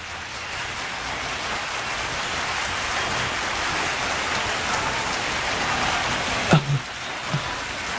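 Arena crowd cheering, a steady wash of noise that builds gently. A short low voice sounds twice near the end.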